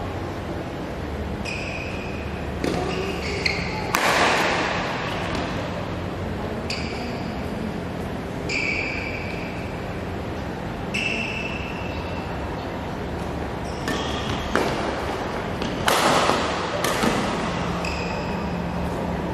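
Doubles badminton in a large, echoing hall. Rubber-soled shoes squeak briefly on the court floor every few seconds, and rackets hit the shuttlecock with sharp clicks. Two louder bursts of sound come a few seconds in and again later.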